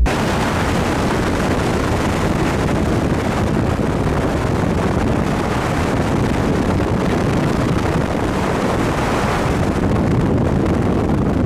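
Steady rush of wind blowing over the microphone at road speed, with no clear engine note under it.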